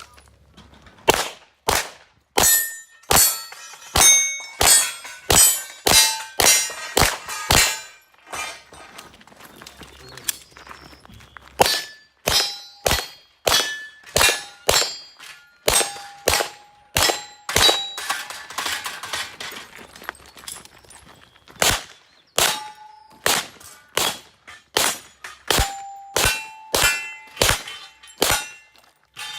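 Rapid pistol fire at steel targets, each shot followed by the ring of struck steel pepper poppers and plates. The shots come in quick strings, with a pause of a few seconds about eight seconds in.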